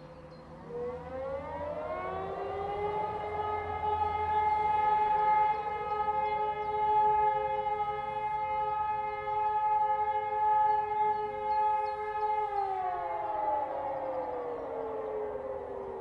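E57 motor siren and SES 600 electronic siren sounding together as a chord in the monthly siren test, heard from a distance. The pitch winds up about half a second in, holds steady for about ten seconds, then winds down near the end.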